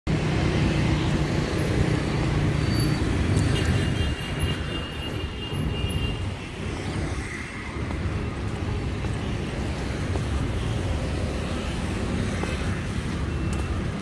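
Road traffic noise from cars and motorbikes passing on a city street, a steady rumble that is louder for the first four seconds and then eases off a little.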